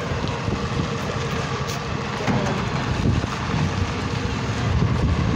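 Garbage truck's diesel engine running steadily with a low, even sound.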